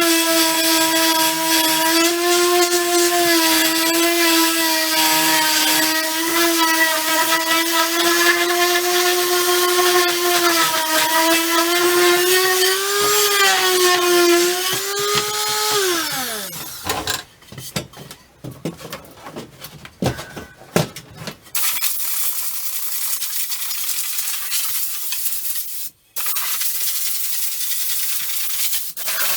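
Electric sander running on wood with a steady whine that wavers slightly under load, then winding down about two-thirds of the way through. A few scattered knocks follow, then a steady hissing noise starts and runs on, cut once by a brief dropout.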